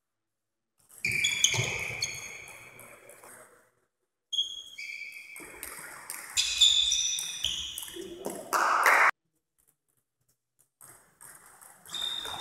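Table tennis rally: the ball clicking off the bats and the table, with high squeaks of shoes on the court floor. The sound drops out to dead silence a few times.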